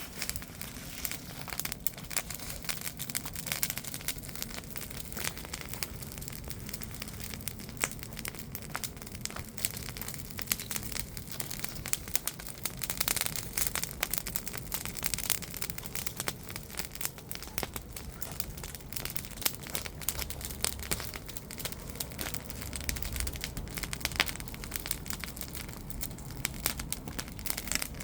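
Wood bonfire burning well, with dense, irregular crackling and sharp pops over a low rumble of the flames.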